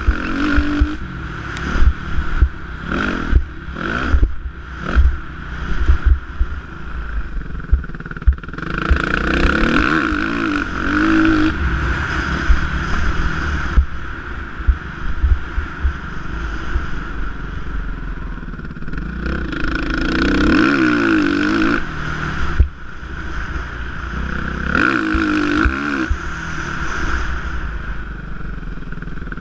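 Suzuki motocross bike engine ridden on a dirt track, revving up and down through the gears with its pitch rising in several long pulls. There are frequent sharp knocks through the first several seconds.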